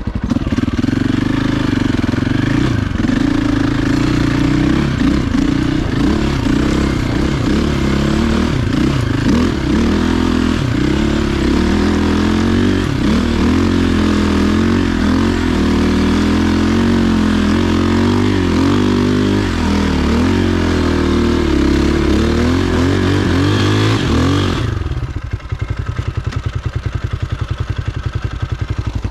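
Dirt bike engine revving hard and unevenly, rising and falling with the throttle, as it works up a hill climb. About 25 seconds in it drops suddenly to a low, evenly pulsing idle.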